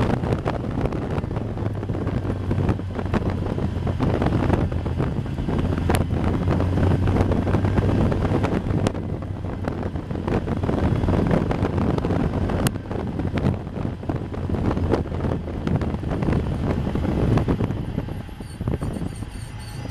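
Caterham race car's engine running at low, steady revs under heavy wind buffeting on the onboard microphone as the open car slows down; the engine note fades away a couple of seconds before the end.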